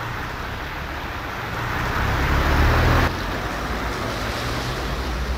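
Street traffic going by, swelling as a vehicle passes about two to three seconds in, then cutting off abruptly to a steadier, quieter hum.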